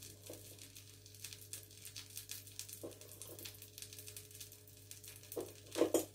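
Faint, steady crackling of hot oil in a frying pan, with a couple of brief louder knocks near the end as chips are handled from a metal bowl.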